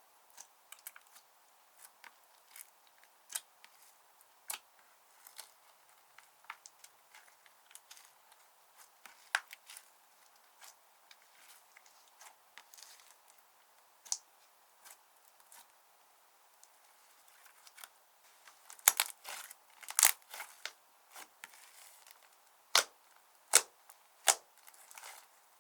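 Slime being squeezed and worked by hand, giving scattered sharp pops and crackles as air pockets burst. Near the end come a handful of louder pops.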